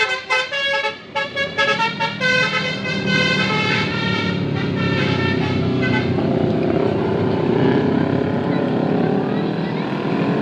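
A bus's telolet basuri musical horn plays a quick tune of short stepped notes. About four seconds in the horn stops, leaving steady engine and street noise.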